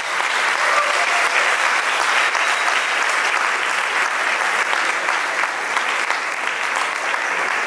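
Audience applauding steadily, a dense even clapping that carries on throughout.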